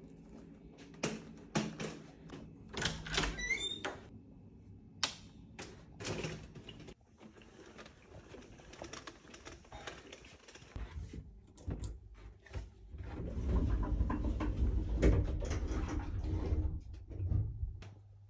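Clicks and knocks as a wheeled shopping trolley bag is handled and taken out through a door, then a low rumble of movement for several seconds from about eleven seconds in as it is taken along the corridor.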